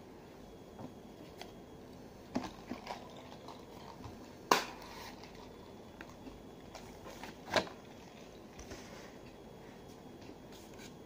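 Small knocks and handling noises of food and a drink cup being picked up and moved on a table: a few sharp taps, the loudest about four and a half seconds in and another about seven and a half seconds in.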